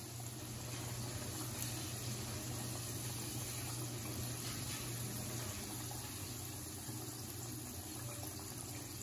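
Breaded crappie fillets sizzling steadily as they deep-fry in hot oil in a pan, with a steady low hum underneath.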